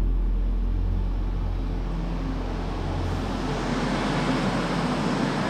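Electric locomotive hauling double-deck coaches pulls in alongside the platform. The rush of wheels and running gear on the rails builds from about two seconds in.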